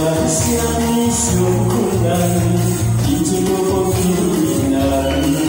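A man singing a pop song into a microphone over an amplified backing track, with tambourine jingles about once a second.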